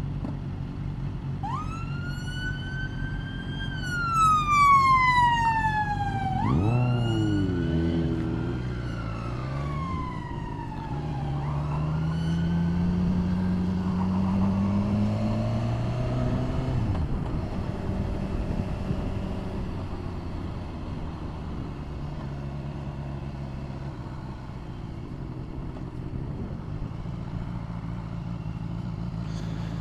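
Emergency vehicle siren wailing in slow rising-and-falling sweeps as it comes through, dying away after about twelve seconds. Under it the motorcycle's engine runs steadily, and its pitch rises midway as the bike accelerates.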